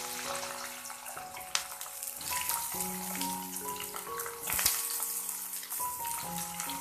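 Bitter gourd and potato pieces sizzling in hot oil in an aluminium wok: a steady frying hiss, with a couple of sharp knocks from pieces and stirring. Background music with slow held notes plays underneath.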